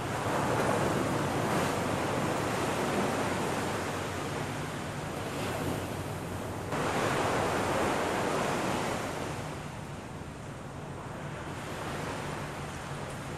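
Small waves breaking and washing up on a sandy beach, the surf rising and falling in swells, with a sudden louder surge about seven seconds in.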